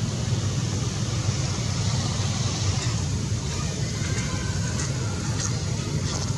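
Steady low rumble with a hiss above it, unbroken outdoor background noise, with a few faint high ticks.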